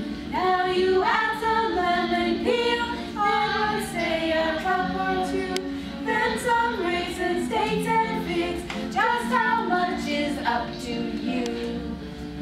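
A group singing a song, with women's voices most prominent, over steady held lower notes.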